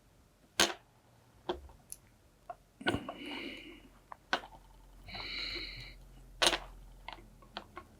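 Light clicks and taps of small parts and a soldering iron being handled on a small circuit board while LED legs are soldered, with two short hissing sounds in between.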